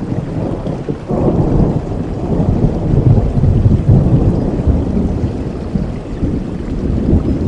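Thunder rumbling over steady rain in a thunderstorm; the low rumble swells about a second in, then slowly dies away.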